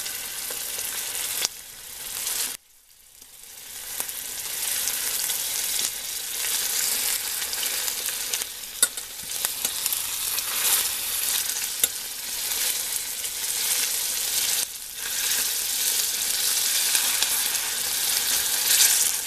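Beef steak sizzling steadily in hot olive oil in a stainless steel frying pan. The sizzle cuts out suddenly about two and a half seconds in and builds back over a second, with a few sharp clicks later on.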